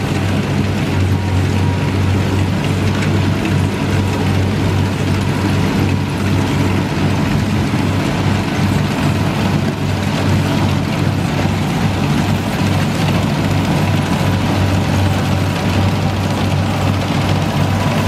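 Kubota combine harvester's diesel engine running steadily at constant speed: a deep, even hum with a thin steady whine above it.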